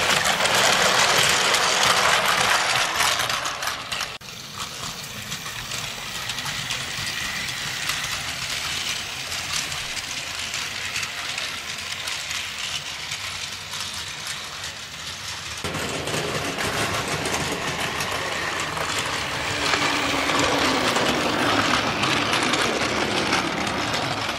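Battery-powered Plarail toy train's small electric motor and gearbox whirring as it runs on plastic track. Loudest in the first few seconds as it passes close, then quieter and steady, growing louder again in the second half.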